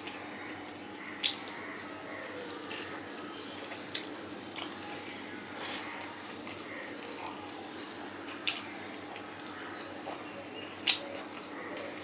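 Close-up wet eating sounds: chewing and lip smacking while eating fried fish and rice by hand, with four sharp smacks standing out, about a second in, near four seconds, around eight and a half seconds and near eleven seconds.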